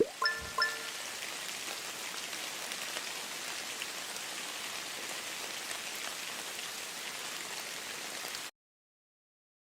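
A steady, even hiss with a rain-like texture, which cuts off abruptly near the end. A few short chime tones sound at the very start.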